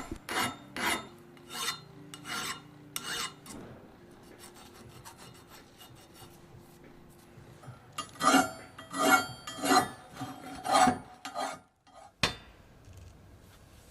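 Hand-finishing strokes scraping back and forth on a machined steel part, about two a second, in two runs near the start and in the second half, with a faint steady low hum between them. One sharp knock comes near the end.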